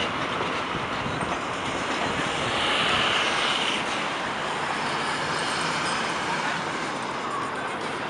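Steady street traffic noise that swells with a high squeal about three seconds in.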